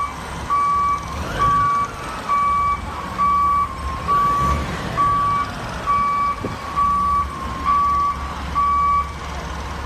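A vehicle's reversing alarm beeping steadily, about one half-second beep a second, stopping shortly before the end, over the low rumble of an engine running.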